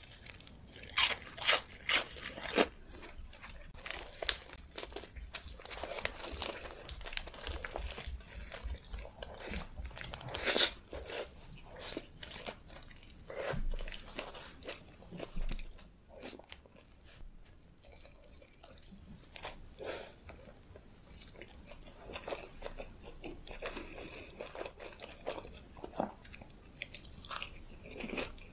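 Crunching bites and chewing of a crumb-coated fried snack, then chewing of a mouthful of pita wrap and fried potato wedges, with a quieter spell in the middle.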